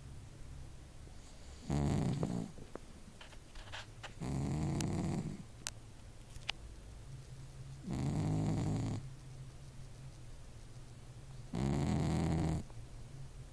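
A domestic cat snoring in its sleep: four snores, each about a second long, about every three and a half seconds.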